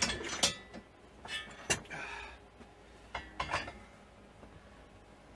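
Steel rocket stove with tack-welded legs being handled and set down on a workbench: several sharp metal clanks and clinks, some with a short ring.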